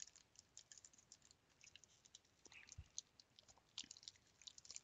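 Faint crackling and small clicks of a clear plastic card sleeve and foil pack wrapper being handled in gloved hands.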